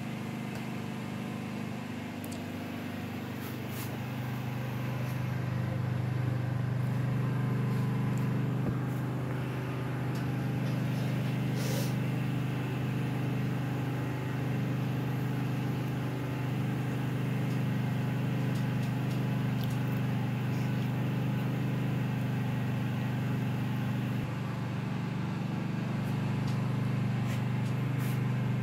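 A steady low mechanical hum, as of a motor running, with a few faint clicks and knocks, the clearest about twelve seconds in.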